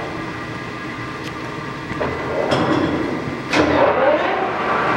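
LeBlond Regal heavy-duty engine lathe's headstock running with a steady hum. A lever click comes about two and a half seconds in, then the spindle and four-jaw chuck start up about a second later, and the gear whine grows louder.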